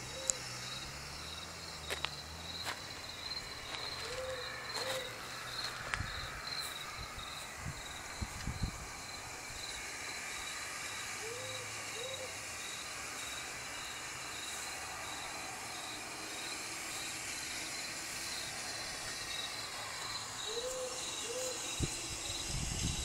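Owl hooting in pairs of short hoots, about every seven or eight seconds, over cricket chirping at about two chirps a second. A few low thumps, the loudest near the end.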